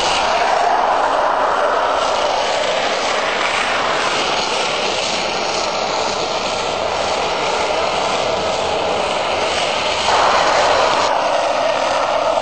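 Steel ball-bearing wheels of a downhill rolimã cart rolling fast on asphalt: a steady grinding roar that gets louder for about a second around ten seconds in.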